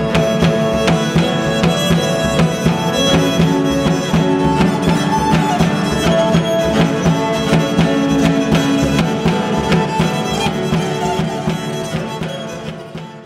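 Live instrumental music: violin playing long held notes over a fast, dense pulse of plucked strings and Persian hand-drum and hammered-string strokes. The music fades out near the end.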